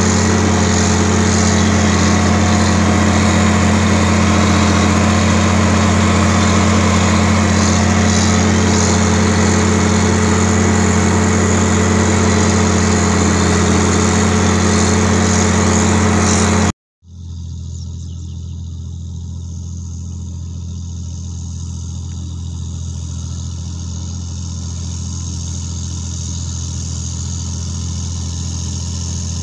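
John Deere 4620's six-cylinder diesel engine running steadily under load while pulling a soil finisher, heard close from the driver's seat. About 17 seconds in the sound cuts off sharply. The tractor is then heard from a distance, quieter and growing slowly louder as it comes closer.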